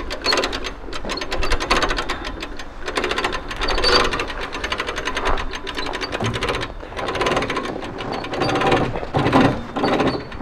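A car-trailer winch hauling a car up the ramp onto the trailer, making a fast, continuous mechanical ratcheting clatter.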